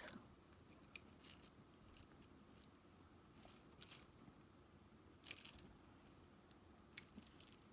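Faint, scattered clicks and rustles of glass-bead bracelets being handled, a few small clicks spread a second or more apart.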